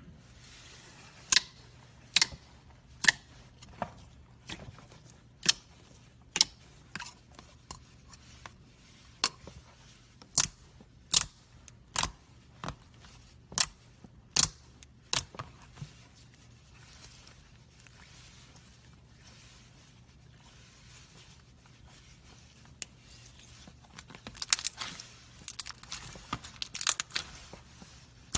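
Slime being pressed and poked, making sharp popping clicks about one every second for the first half. After a quieter stretch comes a burst of rapid crackling near the end.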